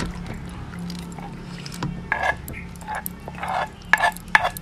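Metal spoon scraping wet, saucy salmon salad out of a wooden mortar, with squelches as the food slides onto a plate. There are several short scrapes, loudest near the end.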